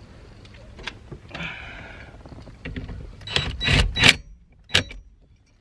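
Metal clinks of tools and parts as the nut is fitted onto the steering column's short hub: light ticks at first, then a few loud sharp bursts of metallic clatter between about three and five seconds in.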